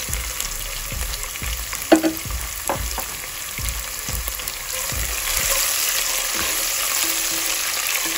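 Hot oil sizzling in a pot as green chilies, ginger, garlic and whole spices fry, with a sharp click about two seconds in. About five seconds in the sizzle grows louder as a spatula stirs the pot.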